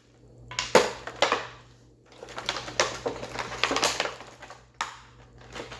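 Taped cardboard toy box being torn open by hand: two spells of ripping, crinkling and scraping, the second one longer, with the loudest snap about a second in.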